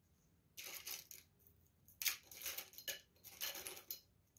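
Fabric rustling as hands smooth and line up the layers of a printed fabric panel and a padded quilt: three short bursts of rustle, about half a second in, around two seconds and around three and a half seconds.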